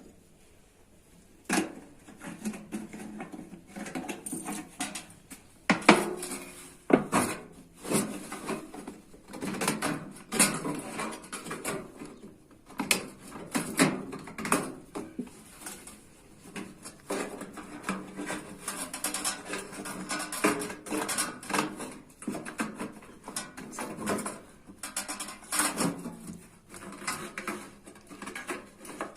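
Metal clattering and scraping as sheet metal and tools are handled, with irregular sharp clanks and no steady hammering rhythm.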